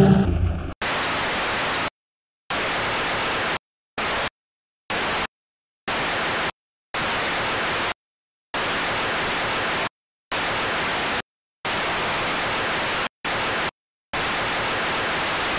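Bursts of white-noise static, switched on and off abruptly, with dead-silent gaps of uneven length between them: about eleven bursts, from a fraction of a second to about a second and a half long.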